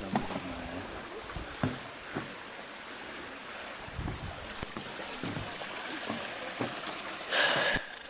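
Footsteps on a wooden boardwalk over the steady trickle of a small rocky forest stream, with a brief loud rush of noise near the end.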